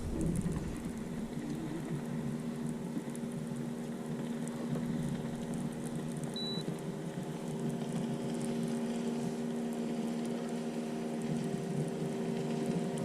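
Boat's electric trolling motor running with a steady hum at an even pitch. A short high beep sounds about halfway through.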